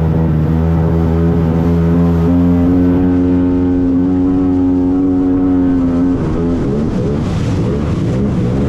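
Jet ski engine running under throttle at a steady pitch. It steps up to a higher steady pitch about two seconds in, then falls in pitch about six seconds in and runs rougher after that.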